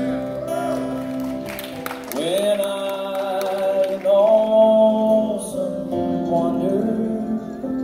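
Live gospel band playing a slow hymn: a woman sings long, held notes with slow glides between them over acoustic guitar, keyboard and bass.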